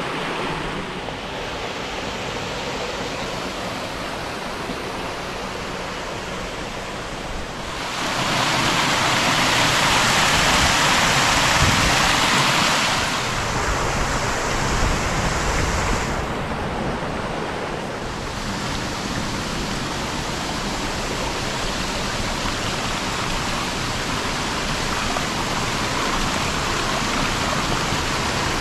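Waterfall and creek water rushing in a steady, even hiss. It grows louder and brighter for about five seconds a third of the way in, then settles back.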